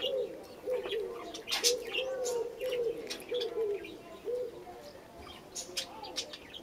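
A dove cooing, a run of short repeated notes that stops about four and a half seconds in, with crisp crunching and rustling close by from a cat chewing blades of cat grass.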